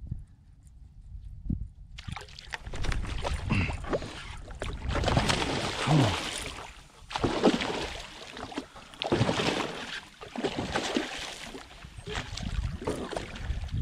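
Hooked redfish thrashing and splashing at the surface in shallow water beside a kayak. The splashing starts about two seconds in and comes in repeated surges every second or two.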